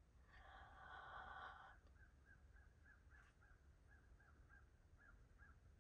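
Faint bird calls: one drawn-out call lasting over a second, then a run of short repeated notes, about three a second, that stop shortly before the end.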